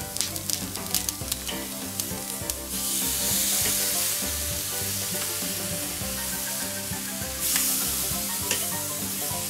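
Chicken breast pieces sizzling on the hot grill grate as they are seared over direct heat: a crackling sizzle that turns into a louder, steady hiss about three seconds in.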